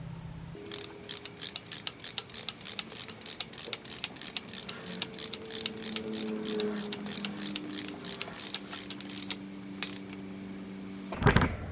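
Hand ratchet with a special oil pressure sensor socket clicking steadily, about three to four clicks a second, as a new GM oil pressure sensor is run down into an LS1 engine block toward its 26 foot-pound torque. The clicking stops a couple of seconds before the end, and a single knock follows near the end.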